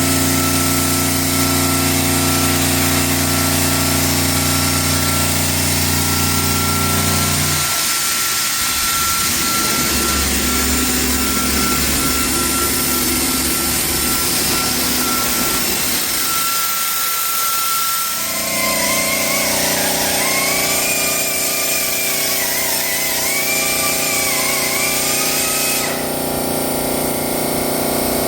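Park Industries Fusion 4045SL CNC waterjet saw running: a loud, steady hiss with machine tones that shift abruptly a few times, and a wavering whine in the second half.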